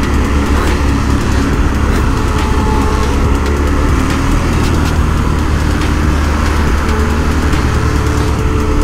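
KTM RC 390's single-cylinder engine running steadily at a constant throttle, with wind and road noise over the microphone.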